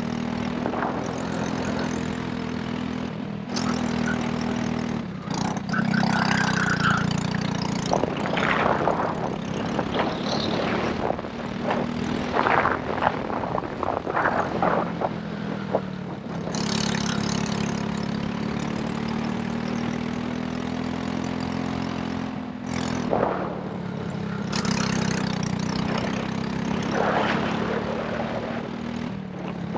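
Racing kart engine running hard through a lap, held at a high, steady pitch. Its note dips briefly a few times as the driver lifts off for corners, then picks up again.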